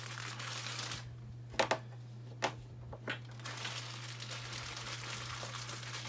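Plastic bag crinkling and rustling as hardware is pulled out of it, broken about a second and a half in by a few sharp clicks of small parts being set down on the bench.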